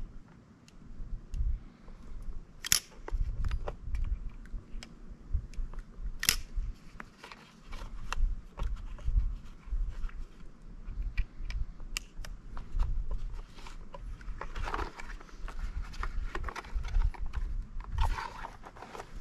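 A .45 Colt handgun being reloaded by hand from an ammunition box: scattered metallic clicks and clinks of cartridges and gun parts, the sharpest about three and six seconds in, over a low rumble.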